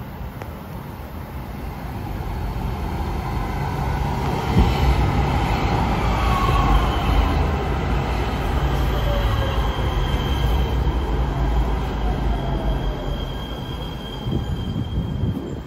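Kinkisharyo P3010 light-rail train pulling into an elevated platform and slowing to a stop. A low rumble of wheels on rail swells as the cars come alongside, and a whine falls in pitch as the train slows. A high steady wheel squeal rises over the second half.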